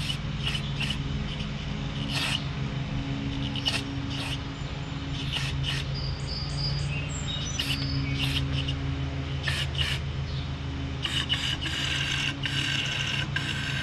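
Compressed air from a blow gun hissing into the open bottom of a lawnmower carburetor in a series of short blasts, then a longer stretch of blowing near the end. This is clearing debris out of the carburetor's emulsion tube and main passages with the float bowl removed. A steady low hum runs underneath.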